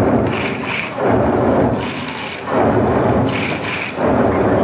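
A massed ensemble of hundreds of drummers playing barrel drums together, a dense rolling din that swells loud in waves every second or so, with brief sharper accents on top.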